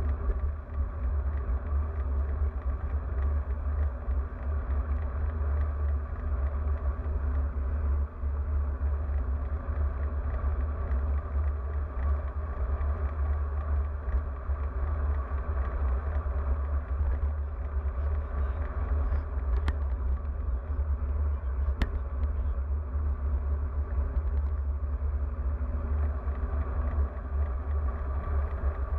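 Steady wind buffeting on the microphone of a bike-mounted action camera while riding a road bike along a street, a low rumble with road noise under it. Two sharp clicks, about two seconds apart, come roughly two-thirds of the way through.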